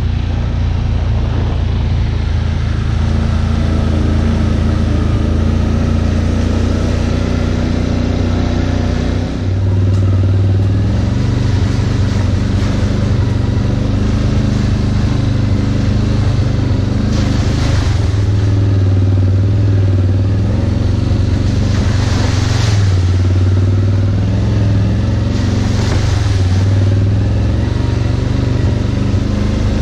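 CFMoto CForce 800 ATV's V-twin engine running as it rides a dirt trail, the engine note rising and falling with the throttle. There are three short rushes of hiss in the second half.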